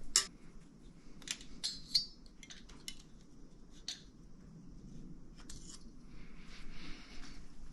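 Scattered light metallic clicks and clinks from small tools and engine parts being handled during the deck-height measurement. They come in a quick cluster about two seconds in and as a sharper single click about four seconds in.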